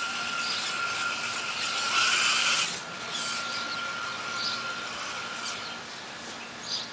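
Electric motor of a radio-controlled truck whining steadily as the truck drives through wet mud, with a louder surge of throttle about two seconds in; the whine stops near the end.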